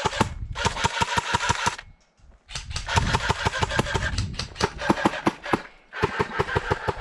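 Airsoft gun firing full-auto in three long bursts, a rapid, even rattle of shots over the whirr of the gearbox, with short pauses about two seconds in and near the end.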